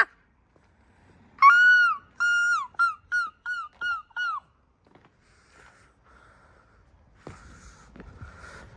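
A gull giving its long call: one drawn-out note about a second and a half in, then about seven shorter notes in quick succession. Fainter calls follow, and a low rumbling noise comes in near the end.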